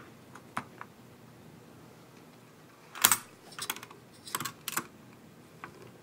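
Small clicks and taps of a CPU being set into a motherboard socket and the socket's metal retention plate being handled: a few faint ticks in the first second, then a cluster of sharper clicks about three to five seconds in.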